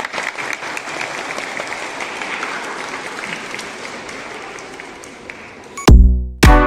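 Audience applauding, a dense patter of hand claps that slowly dies down. About six seconds in, loud electronic dance music with a heavy drum-machine beat starts abruptly.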